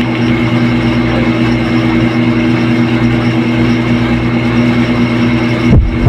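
A steady low droning hum runs through, with a heavy low thump near the end.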